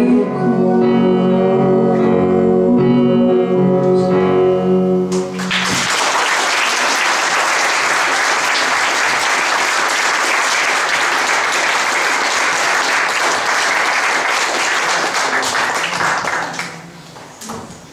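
A song's last held chord, sung over flute and accompaniment, ends about five seconds in and gives way to steady audience applause that dies away near the end.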